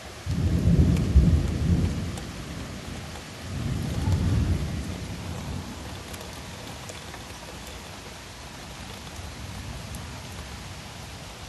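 Thunder rumbling over steady rain. A deep rumble breaks in suddenly just after the start, swells again about three and a half seconds in, and dies away by about six seconds, while the rain keeps falling evenly.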